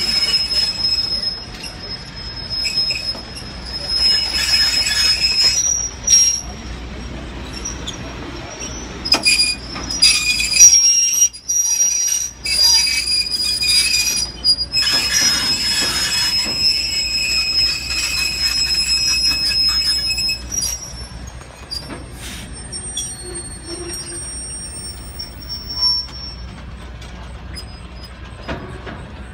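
Train wheels squealing against the rails as a string of riveted steel passenger coaches rolls past. A high-pitched squeal comes and goes in stretches lasting from a second to several seconds, over a low rumble, and grows fainter over the last several seconds.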